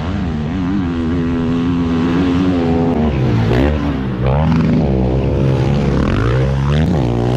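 Motocross bike engines revving hard, the pitch rising and falling as the throttle is opened and shut, with quick rising blips as the bikes go over a jump.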